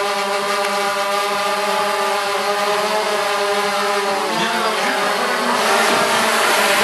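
DJI Phantom 2 quadcopter hovering close by, its four electric propeller motors giving a steady, multi-toned buzz. From about four seconds in, wavering tones that rise and fall join the steady buzz and it grows a little louder.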